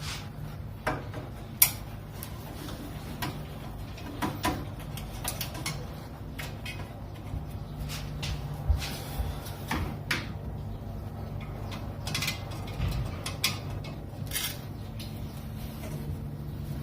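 Scattered clicks, knocks and scrapes of a hand tool working the screws around a car headlight, over a steady low hum.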